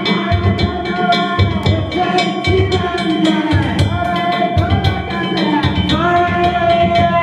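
Danjiri festival music: a drum beating steadily with sharp metallic hand-gong strikes several times a second, under a held, wavering melody line.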